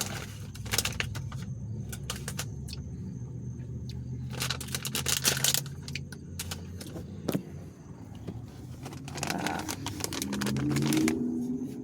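Scattered clicks, small rattles and rustling of objects being handled, over a steady low hum, with a denser stretch of rustling a little before the middle.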